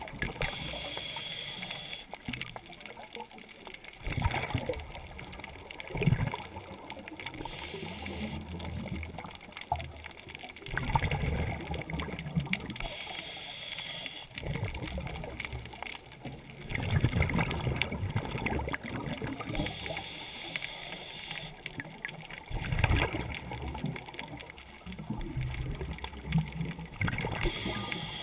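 Scuba diver breathing through a regulator underwater: a hissing inhale every six or seven seconds, each followed by a low, gurgling rush of exhaled bubbles.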